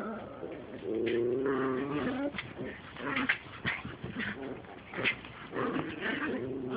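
Dogs play-fighting, making growling, grumbling calls, a long drawn-out one about a second in, with clicks and knocks of scuffling.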